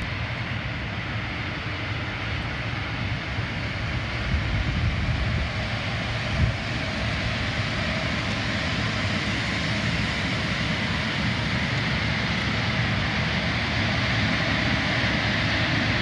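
Large commercial air-conditioner outdoor units running behind louvered walls: a steady fan and compressor drone with a low hum and a higher rushing hiss, growing gradually louder toward the end.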